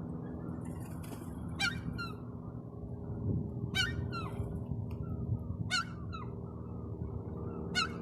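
Herring gull calling four times, about two seconds apart, each a sharp honking call followed by a short second note, over a steady low rumble.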